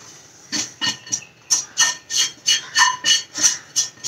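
Silicone spatula scraping dry-roasted semolina out of a nonstick pan onto a glass plate: a run of quick scrapes, about three a second, starting about half a second in.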